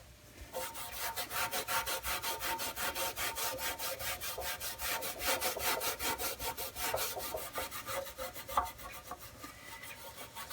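Hand scrubbing of surface rust off a steel toolbox with an abrasive, in rapid, even strokes of about six a second that start about half a second in.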